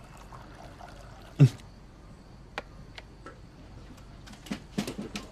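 Hot water trickling from a thermos flask into a porcelain tea cup, with a single dull knock about one and a half seconds in and light clicks and taps of china and the flask near the end.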